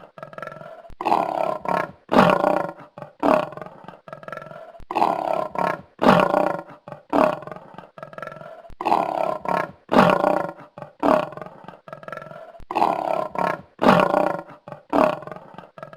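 A lioness calling in a long run of deep roars and grunts. Each call is loud at the start and trails off, and they come about every second or two.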